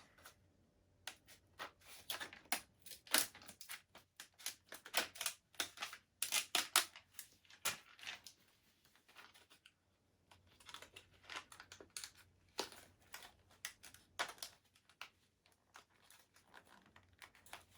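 Scissors cutting into a hard plastic blister pack: irregular sharp snips and crackling plastic, with short pauses between bouts.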